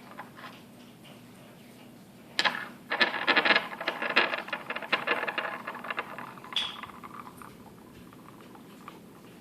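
Egg-shaped rattle magnets ('snake eggs') clicking and rattling against each other: a sharp click about two and a half seconds in, then a fast, dense rattle of clicks for about four seconds that thins out and stops.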